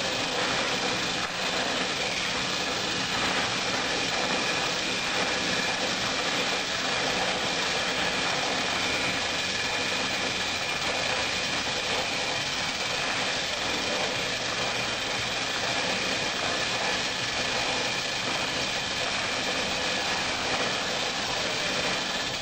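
Steady mechanical running noise at an even level, with a few faint steady high tones through it.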